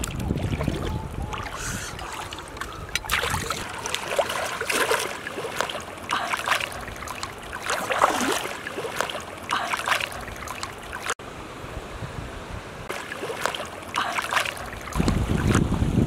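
Water splashing and sloshing in irregular bursts as a person wades through chest-deep floodwater, with wind rumbling on the microphone at the start and again near the end.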